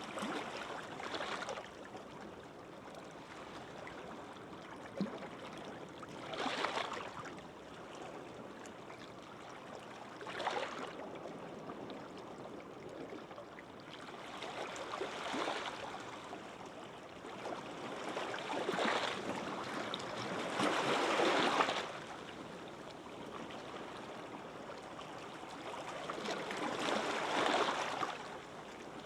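Small waves washing gently onto a sandy beach. A soft hiss of surf swells up and dies away every few seconds, with the strongest wash a little past the middle.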